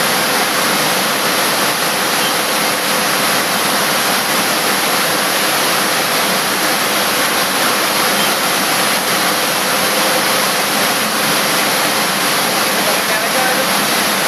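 Loud, steady rushing noise of running factory machinery, unbroken throughout, with a faint steady tone in it.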